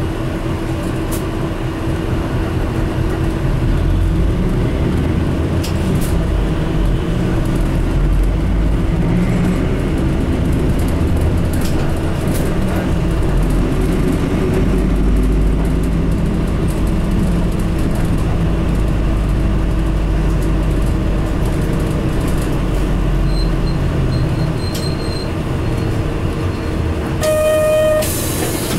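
Isuzu Cubic city bus's diesel engine pulling away and running, heard from inside the passenger cabin as a steady low rumble with road noise, with a brief pitched tone near the end.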